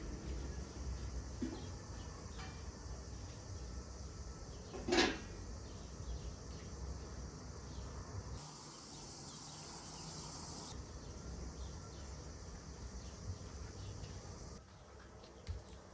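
Steady low background hum with one sharp knock about five seconds in.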